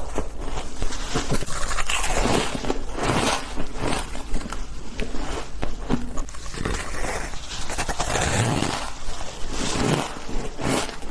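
Close-miked crunching and chewing of chunks of packed shaved ice, bitten off and ground between the teeth: a near-continuous run of crisp, gritty crunches.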